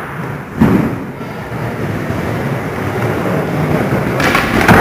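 Skateboard wheels rolling over a skatepark floor, a steady rumbling hiss, with a sharp knock of the board about half a second in and a louder clattering burst near the end.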